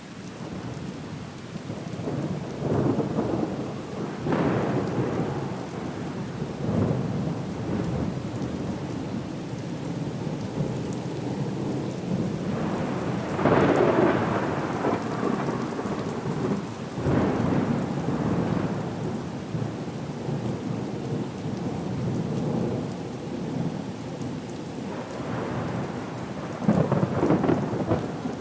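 Storm ambience: steady rain with rolling rumbles of thunder that swell up several times, the strongest about halfway through and another near the end.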